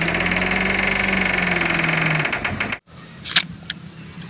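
Engine sound effect: a steady, pulsing buzz that rises slightly in pitch, then cuts off abruptly a little under three seconds in. Two light clicks follow near the end.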